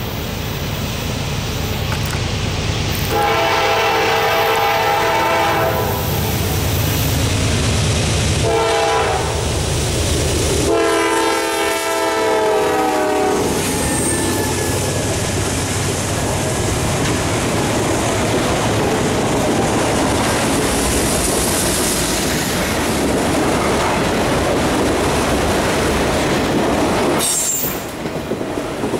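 A freight train's diesel locomotive approaching with its horn sounding three blasts, long, short, long, over the engine rumble. Then the train rolls close past, autorack cars with wheels clicking over the rail joints.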